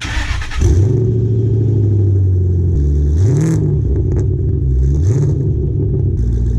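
A 2014 Ford Fusion's engine starting and catching, settling into a steady idle, then revved in short blips that rise and fall in pitch, about one every second and a half.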